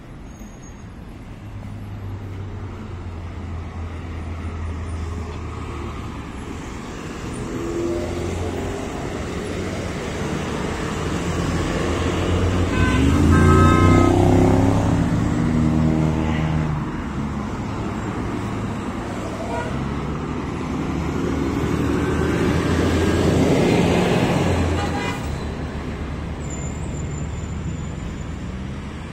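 Road traffic on a city street: a steady drone of car engines and tyres, with vehicles swelling past loudest about halfway through and again later on.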